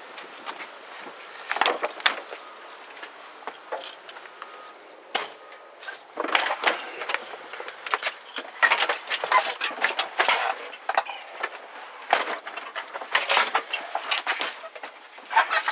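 Irregular knocks, clunks and rustling of someone climbing into a heavy truck's cab and settling in, with the engine still off. The handling sounds are sparse at first and come thick and fast from about six seconds in.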